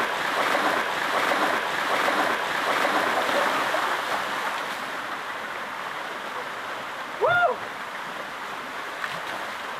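Water poured from buckets splashing down over a seated person and the rocks, on top of a small waterfall's steady running water. The splashing is loudest for the first few seconds and then eases off. About seven seconds in there is one short cry that rises and falls in pitch.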